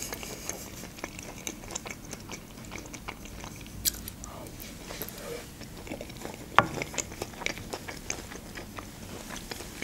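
A person chewing mouthfuls of canned sweet corn: many small wet mouth clicks, with a couple of sharper clicks about four and six and a half seconds in.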